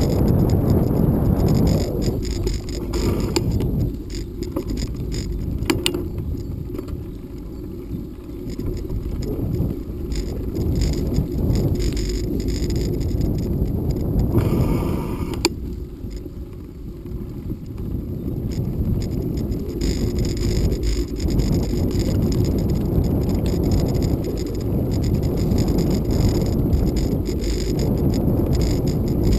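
Bicycle riding over a rutted dirt road: a steady low rumble of tyres and wind on the microphone, with frequent small rattles and knocks as the bike goes over bumps.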